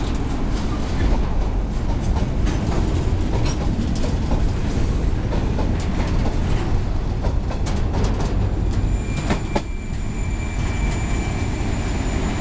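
Freight train's covered boxcars rolling past close by, a steady rumble with wheels clicking and knocking over the rail joints. About nine seconds in, the rumble eases as the last car goes by, and a thin, high, steady wheel squeal holds on as the train moves away.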